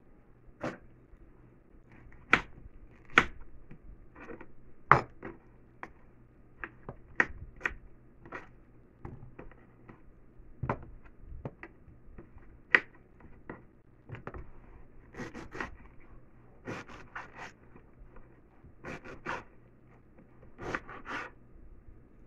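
Kitchen knife cutting fresh pineapple on a wooden cutting board: irregular sharp knocks of the blade meeting the board, a few much louder than the rest, with softer slicing and scraping between them.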